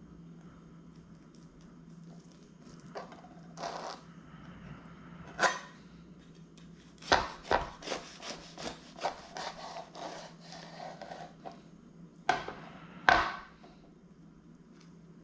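Knife sawing through a toasted everything bagel sandwich on a plastic cutting board, in a run of quick back-and-forth strokes. A few sharp knocks on the board come before and after the cutting.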